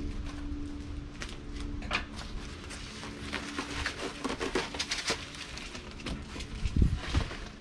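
Brown packing paper rustling and crinkling as it is pulled from a shipping box and handled, with a scatter of small crackles and taps, and two dull thumps near the end.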